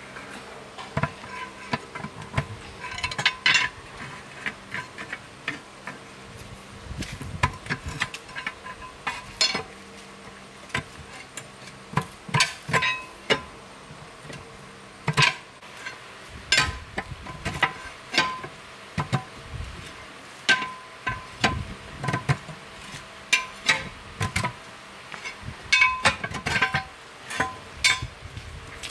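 Steel tyre irons knocking and scraping against a steel truck wheel rim while a tyre bead is pried off: irregular metallic clanks, many with a brief ring, mixed with duller thuds.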